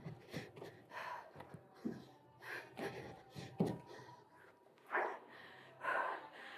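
Faint, scattered sounds of a person doing burpees and squat hops: hard breathing and puffing exhales, with a few soft thuds of bare feet and hands landing on a rug.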